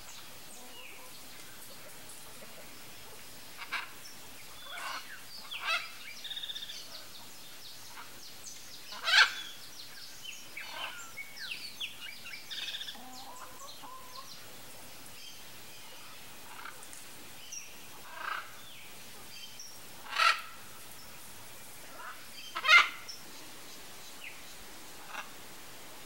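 Red-and-green macaw squawks at irregular intervals, the loudest about nine, twenty and twenty-three seconds in. Fainter, shorter calls come in between.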